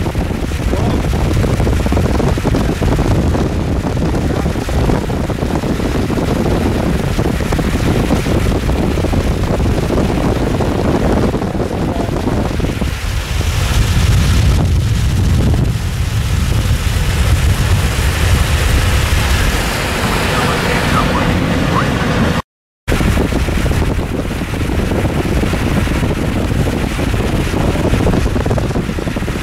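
Wind buffeting the microphone over the steady road noise of a car driving at speed, a loud continuous hiss and rumble that swells for several seconds midway. The sound cuts out completely for a split second about three-quarters of the way through.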